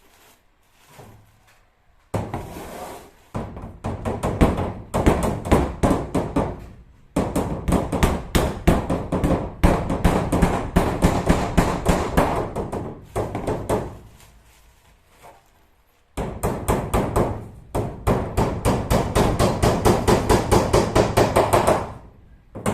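Hammering: rapid, rhythmic hammer strikes in two long runs, with a pause of about two seconds between them.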